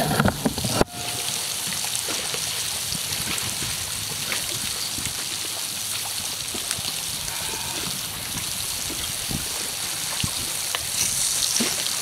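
Catfish frying in hot oil in a cast-iron skillet over a campfire: a steady sizzle scattered with small pops and crackles. In the first second there is a brief, louder clatter of handling that cuts off abruptly.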